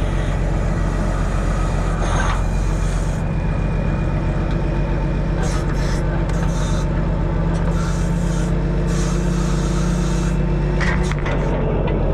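Diesel engine running steadily to power a hydraulic log loader while logs are loaded onto the truck, with brief scraping sounds over it. The engine note changes near the end.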